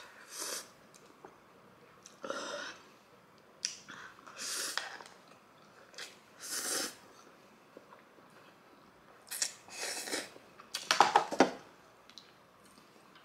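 A person eating spicy instant noodles close to the microphone: short separate bursts of slurping and chewing every second or two, then drinking from a can, with the loudest cluster about 11 seconds in.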